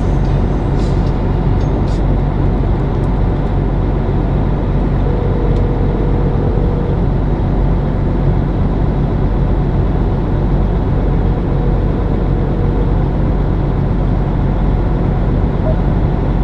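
Truck engine idling steadily while the truck stands still, a low even hum heard from inside the cab.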